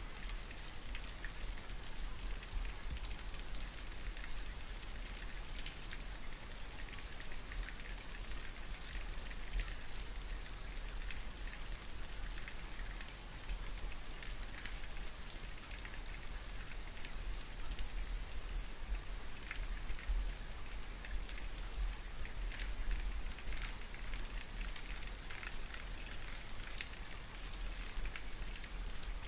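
Rain falling steadily, with many small separate drop ticks, over a constant low rumble.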